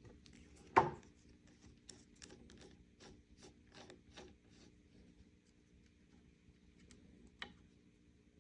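Small metal clicks and scrapes from hand work on a rifle's trigger assembly: a sharp click about a second in, then a quick run of about ten short clicks at roughly three a second, and one more click near the end.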